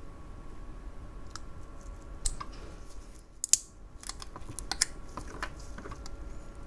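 Irregular small clicks and snips of side cutters and fingers working the heat-shrink wrap off an 18650 lithium battery, the sharpest snip about three and a half seconds in.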